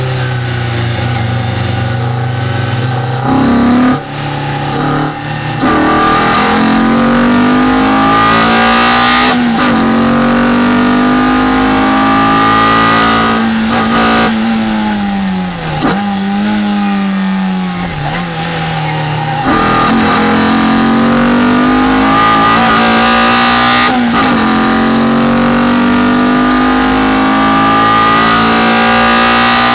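Renault Clio 172's 2.0-litre four-cylinder engine, heard from inside the cabin, driven hard on a race track. The revs climb steadily and drop sharply at several upshifts. Around the middle the revs fall away twice under braking and downshifting before pulling up again.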